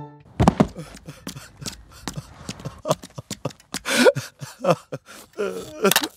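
A cartoon character sobbing in short, catching breaths and cries, with a click near the end.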